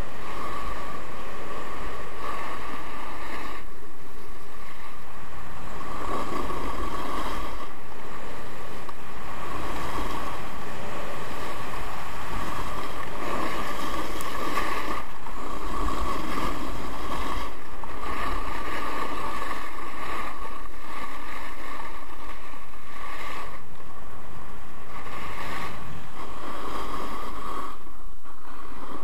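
Skis running and turning on a groomed piste, with wind rushing over the camera microphone. The rush is loud and steady, swelling through the turns and dropping briefly several times between them.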